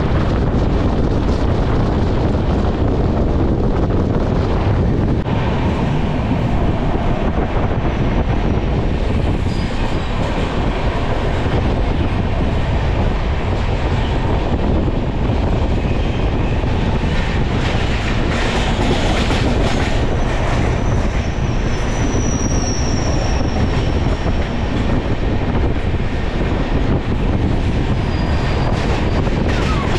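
Passenger train running on the rails, heard from aboard: a steady loud rumble with wheels clacking over rail joints. A brief thin high squeal comes about two-thirds of the way through.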